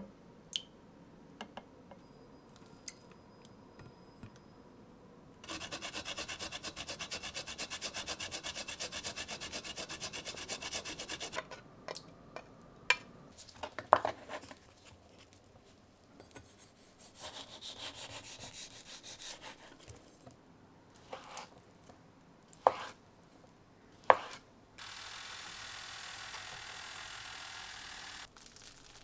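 Kitchen food-preparation sounds: a fast, even scraping rhythm for about six seconds, then scattered sharp knocks and clicks. Near the end comes a few seconds of steady whirring from a running toaster oven.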